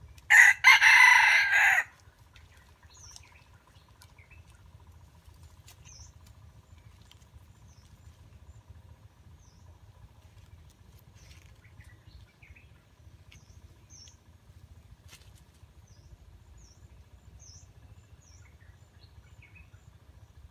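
Red junglefowl rooster crowing once, loud and close, in the first two seconds. Afterwards only faint, scattered short chirps of small birds.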